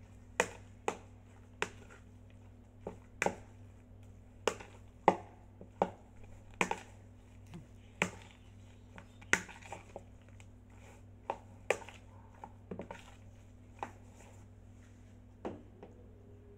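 Utensil knocking against a bowl while minced pork is mixed with its marinade: sharp, irregular clacks about once or twice a second.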